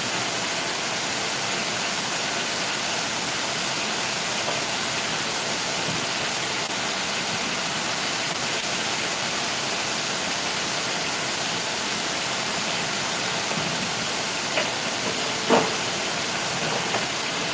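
Ribs deep-frying in hot oil in a stockpot: a steady sizzling hiss, with a couple of light clatters about fifteen seconds in.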